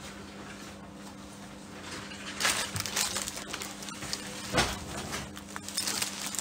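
Plastic wrapping crinkling and rustling as clothes are handled and folded, starting about two and a half seconds in, with a soft thump about halfway through. A steady low hum runs underneath.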